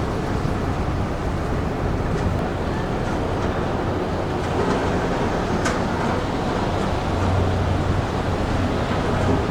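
The lake freighter Kaministiqua moving into the lock, giving a steady low rumbling, scraping noise over the hum of its engines, with a few faint ticks. The scraping is unusual for a ship entering a lock and has no known cause.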